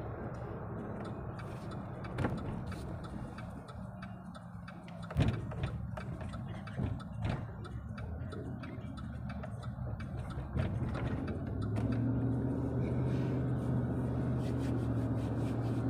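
Car cabin sound while driving: engine and tyre noise with scattered clicks and knocks in the first half, then from about eleven seconds in a steady, louder engine drone as the car picks up speed.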